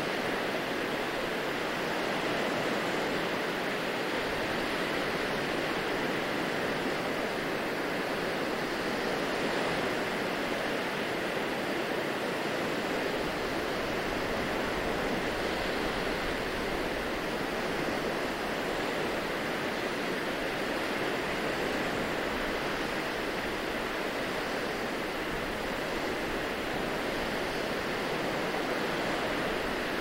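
Small waves washing onto a sandy beach: a steady, even surf noise with no distinct crashes.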